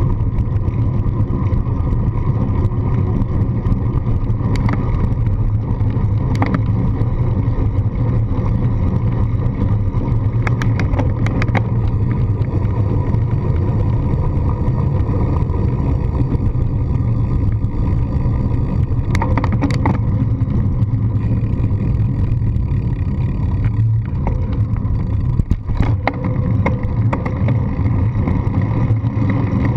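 Steady low rumble of wind buffeting and road vibration picked up by a handlebar-mounted GoPro on a moving bicycle, with scattered rattling clicks from bumps in the surface.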